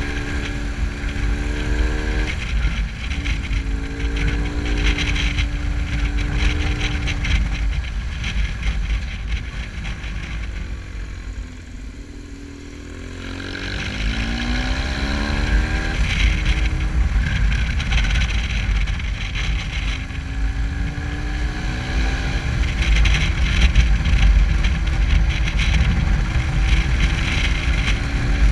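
Touring motorcycle engine running under way, its pitch rising and falling with the throttle, over a low rumble of wind on the microphone. About ten seconds in it eases off and goes quieter, then picks up again with a rising pitch as the bike accelerates.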